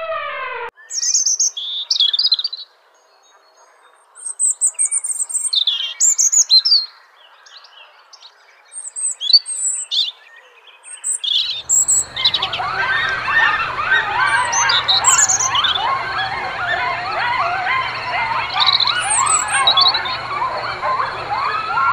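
Birds chirping in short, high, quick phrases with pauses between them. About twelve seconds in, a dense chorus of many overlapping calls takes over, with a faint steady hum underneath.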